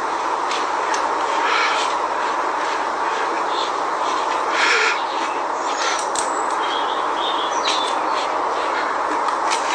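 Steady outdoor rushing noise with small birds chirping now and then, and a few short rustling bursts: leafy branches being shaken and torn by a dog leaping at them.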